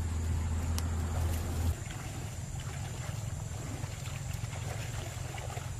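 A low steady rumble that drops off abruptly a little under two seconds in, under faint splashing of feet wading through shallow pond water.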